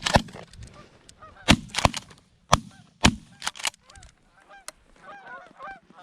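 A volley of about six shotgun shots from two hunters firing on a flock of geese, spread over the first four seconds, with geese honking throughout and honking more densely after the shooting stops.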